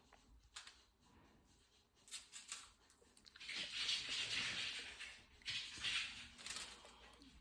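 Curry powder being shaken out of its container onto raw chicken: a few light clicks and taps, then two spells of gritty, hissing shaking.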